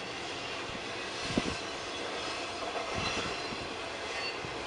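Double-stack intermodal freight train rolling past: a steady rush of wheels on rail, with a few sharp clunks, the loudest about a second and a half in.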